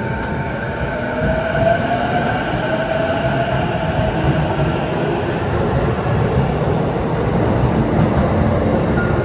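Electric commuter train running, with a faint motor whine that rises in pitch over a few seconds, as when the train picks up speed.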